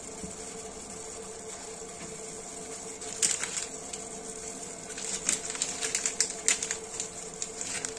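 Tea boiling in a small steel pot on a gas stove, a steady hiss with bubbling. From about three seconds in, and more densely near the end, irregular sharp clicks and taps as the pot is stirred.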